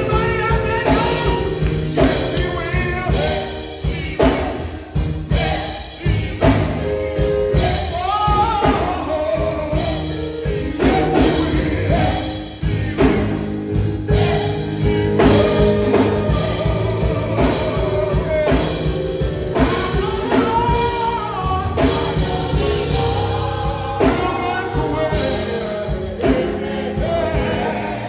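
Gospel song sung live by a male soloist over band accompaniment with a steady drum beat; the voice slides and bends through the melody.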